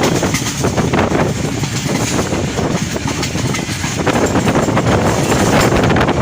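Diesel-hauled passenger train running past, steel wheels clattering over the rail joints in a dense stream of clicks, with wind buffeting the microphone.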